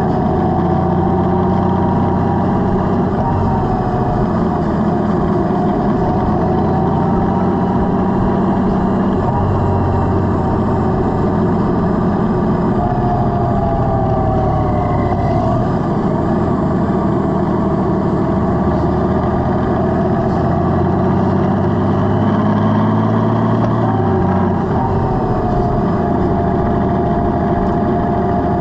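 Honda Gold Wing's flat-six engine running under way on the road, its pitch rising and falling gently with speed.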